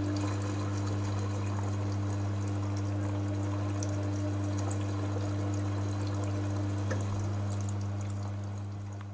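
Front-loading washing machine drum tumbling a heavy load of wet linen: water sloshing over a steady motor hum, with a few light clicks. The sound eases off near the end as the drum slows.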